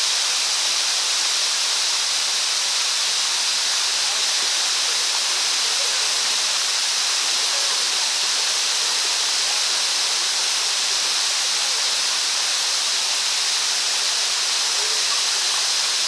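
Waterfall, water falling in two streams down a tall rock face into the pool below: a loud, steady, even rush with a strong hiss and no breaks.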